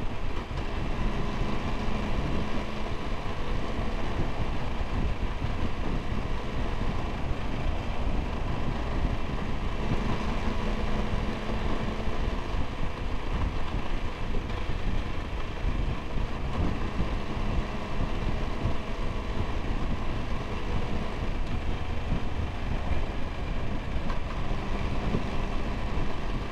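Triumph Tiger 1200 GT Explorer's three-cylinder engine running at a steady cruise under continuous wind rush on the microphone, the engine note swelling a little about ten seconds in and again near the end.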